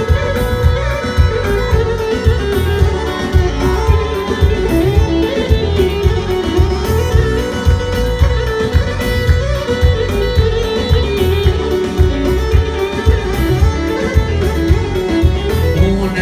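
Live wedding band playing an instrumental passage: a winding lead melody over a steady dance beat, with no singing.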